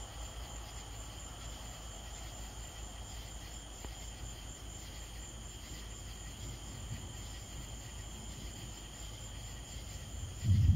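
Steady night chorus of crickets and other insects, a faint high drone. Near the end a loud low thump or rumble cuts in.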